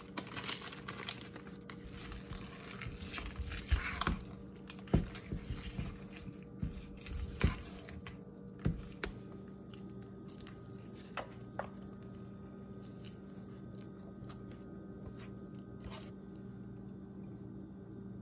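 Silicone spatula folding chocolate chips into thick banana bread batter in a stainless steel bowl: sticky squelching with sharp knocks of the spatula against the bowl. About nine seconds in it turns quieter, with a few light taps as the batter is scraped into a metal loaf pan.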